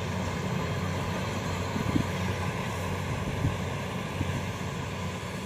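Kubota DC-70 rice combine harvester running steadily, its diesel engine and machinery working as it cuts standing rice.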